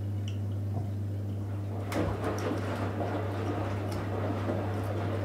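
Electrolux EWF 16589 W front-loading washing machine running with a steady low hum; from about two seconds in, water rushes and splashes in the drum.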